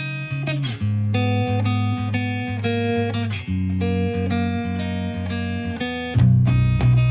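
Background instrumental music of plucked guitar notes over a bass line, growing louder about six seconds in.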